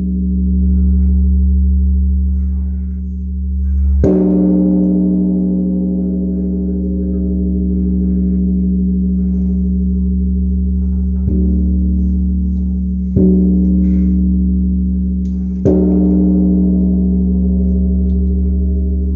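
Haeinsa Temple's great bronze bell (beomjong), a large Korean Buddhist temple bell, ringing with a deep hum that swells and fades under higher overtones. It is struck again about four seconds in, with the strongest strike, and three more times in the second half.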